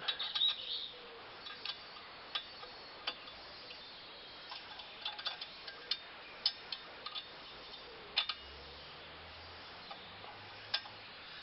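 Scattered light metallic clicks and taps of a 7 mm hex key being worked to tighten a brake caliper guide pin.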